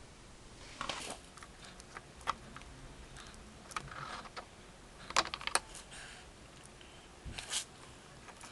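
Scattered light clicks and short rustling clatters of small objects being handled, loudest about five seconds in and again near the end.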